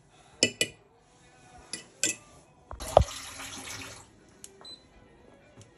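A teaspoon clinks against a stainless-steel Turkish coffee pot (cezve) a few times as ground coffee is spooned in. Then comes a knock and about a second of water pouring, and near the end a glass-ceramic hob's touch controls beep twice.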